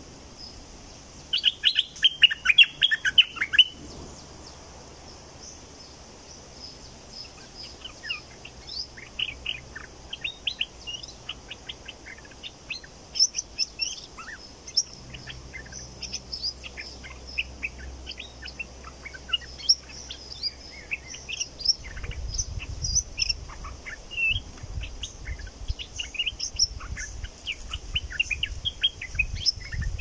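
Bulbul calling, with many short chirps and call notes throughout and a dense loud burst of song about two seconds in. A low rumbling noise joins about two-thirds of the way through.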